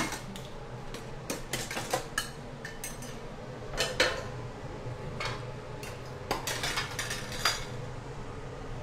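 Metal kitchen utensils clinking and clattering at irregular moments, first as a drawer full of utensils is rummaged through, then as a utensil knocks against a pot on the stove.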